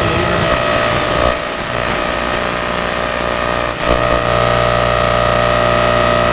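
AM radio receiver giving static and interference between stations: a steady buzzing hum of several tones over a hiss. Its character shifts abruptly about a second in and again near four seconds.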